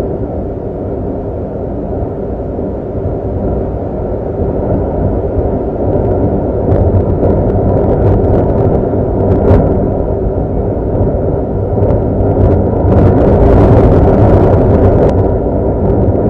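Low, steady rumbling drone of added horror-ambience sound effects. Scattered crackling clicks come in about six seconds in, and a louder, hissier swell builds near the end.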